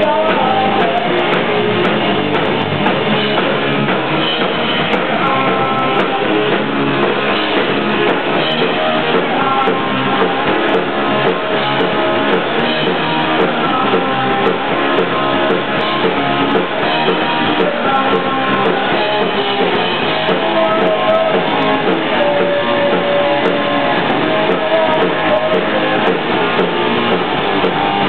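Pop-punk band playing live: electric guitar and drum kit, with a man singing into a microphone. Loud and steady throughout, with the top end cut off, so it sounds dull.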